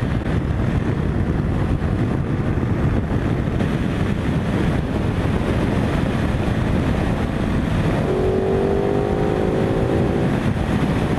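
Ducati Multistrada 950 motorcycle at road speed, heard from a handlebar-mounted camera: a loud, steady wind rush mixed with engine noise. About eight seconds in, a pitched engine note stands out and rises slightly for about two seconds as the bike speeds up.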